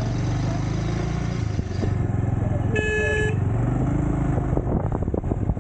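Motorcycle engine running steadily under way, with one short horn toot about three seconds in and a few light knocks near the end.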